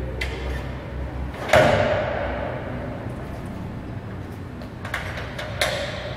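Metal clamps on the membrane frame of an Ormamacchine Duplex 40/13 thermoforming press being released by hand. They give a few sharp clacks with a short metallic ring, the loudest about one and a half seconds in and two smaller ones near the end, over a steady low machine hum.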